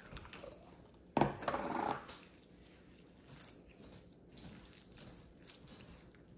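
Clear red slime being taken out of its plastic tub and squished in the hands, giving small sticky clicks and crackles, with a louder burst of handling noise about a second in.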